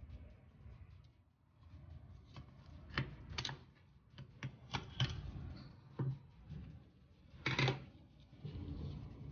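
Sharp metal clicks and clinks of snap-ring pliers and a snap ring being worked onto a Meritor 14X differential's power divider input shaft, with a longer, louder metallic clatter about three-quarters of the way through.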